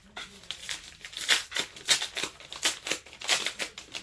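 Rustling and crinkling of a comic-book shipping package as it is handled and opened: a quick, irregular run of sharp paper scrapes, louder from about a second in.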